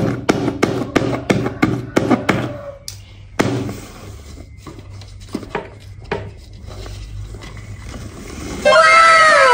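Spinning-wheel sound effect: a run of sharp ticks, about three a second, slowing and stopping a few seconds in. Then faint scratching of a fingernail peeling a paper sticker, and near the end a loud cartoon sound effect of repeated falling whistle-like tones.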